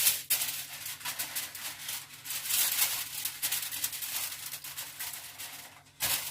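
Crinkling, rattling rustle of a covering being pressed and tucked over a raw ham before it goes into the oven.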